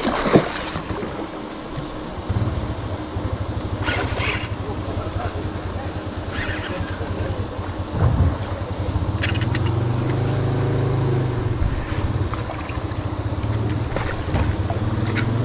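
A hooked fish splashes at the surface about half a second in, then an Abu Garcia Revo SX baitcasting reel is cranked close to the microphone, a steady fast whirr of its gears as the fish is reeled in. A thump comes about eight seconds in.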